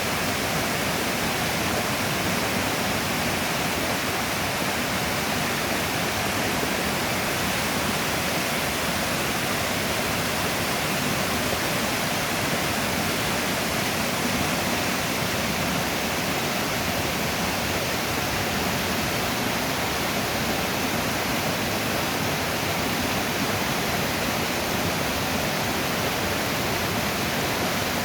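Mountain stream in spate after days of heavy rain: high, fast water rushing over rocks in a steady, unbroken wash of sound.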